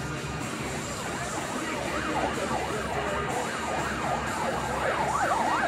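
A yelping siren, its pitch sweeping quickly up and down about four times a second, starting faintly and growing louder toward the end.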